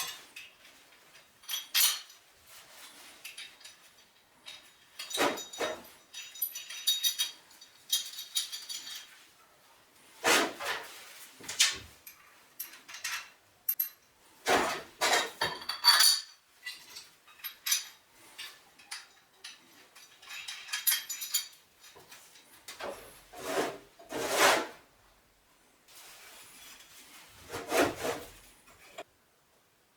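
Metal parts and hand tools being handled: irregular scrapes, rubs, knocks and clinks, a dozen or so separate bursts with pauses between them, and no power tool running.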